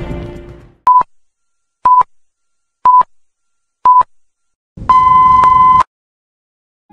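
Film-leader countdown sound effect: four short beeps on one pitch, a second apart, then a longer final beep lasting about a second.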